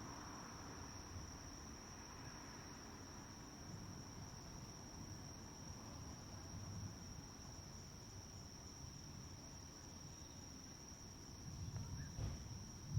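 Steady high-pitched chirring of crickets in an evening insect chorus, over a faint low rumble of distant traffic that swells briefly near the end.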